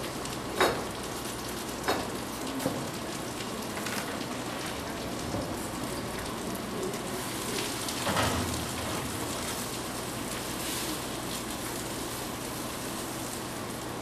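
Pear slices sizzling in browned butter in a nonstick frying pan, a steady hiss and crackle. There are a few sharp clicks in the first three seconds, and a silicone spatula stirring the slices about eight seconds in.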